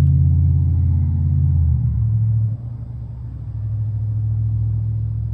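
2006 GMC Envoy Denali's engine idling with a steady low hum. About two seconds in the pitch steps down and the sound grows a little quieter.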